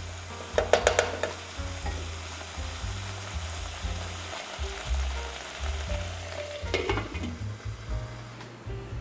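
Vermicelli sizzling as it cooks in a pan, stirred with a spatula: a steady sizzle with two short bursts of scraping and clatter against the pan, about a second in and again about seven seconds in.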